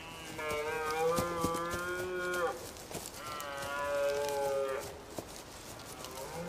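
Red deer stag bellowing in the rut: two long, drawn-out roars, each about two seconds, steady in pitch and dropping away at the end, with a short gap between them.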